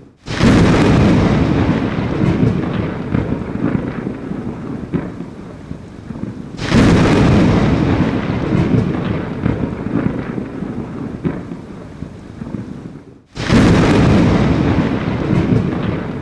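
Thunderstorm with rain: thunder cracks in suddenly three times, about six and a half seconds apart, each time rumbling and fading away under a steady hiss of rain.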